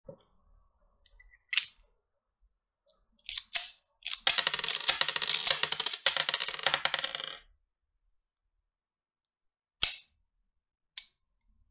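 Small metal clicks and rattling from a miniature alloy Beretta M92 toy pistol and its magazine being handled. A few sharp clicks come first, then about three seconds of dense rapid clicking, then two single clicks near the end.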